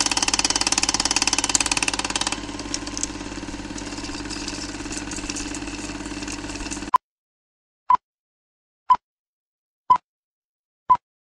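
A cine film mechanism running with a fast, even clicking and a steady hum, louder for the first two seconds or so, then stopping with a click about seven seconds in. Then four short single-pitch beeps, one a second: a film countdown leader.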